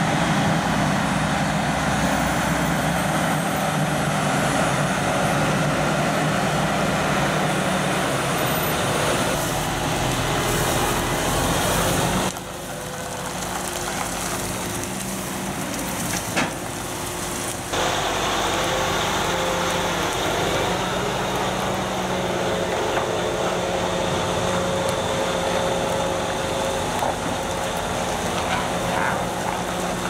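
Engine of a 500 hp Claas Xerion 5000 tractor running steadily under load as it drives along, towing a heavy trailed drum wood chipper, a continuous drone with road and tyre noise. The sound shifts abruptly about 12 seconds in and again about 18 seconds in.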